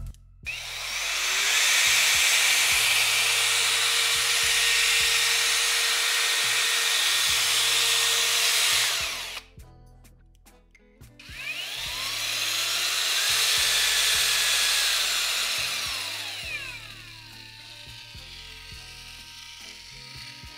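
Parkside PFMRA 20-Li A1 cordless paddle mixer running twice. First it starts sharply and runs steadily for about nine seconds before stopping. Then it speeds up gradually, holds, and winds down to a fainter steady hum near the end. Background music with a steady beat plays underneath.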